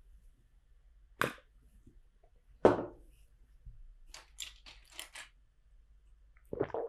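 Plastic LEGO bricks being handled: two sharp clicks as bricks are pressed into place, then a short spell of light clattering as loose bricks are sifted through.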